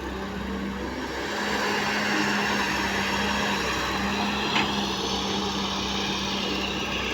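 Heavy diesel machine engine running steadily, getting louder about a second and a half in, with one sharp click near the end.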